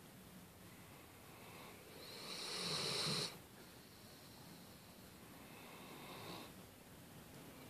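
Irish setter resting and breathing heavily through its nose in two long snore-like breaths: a loud one that swells about two seconds in and cuts off sharply, then a fainter one near the end.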